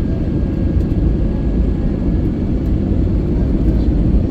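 Cabin noise of an Airbus A321neo on short final: its Pratt & Whitney geared turbofan engines and the rushing airflow give a steady low rumble through the cabin, with a faint steady whine over it.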